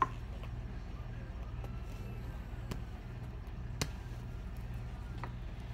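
A steady low hum with a few short, soft clicks and taps as fingers stuff filling down into a vinyl reborn doll limb.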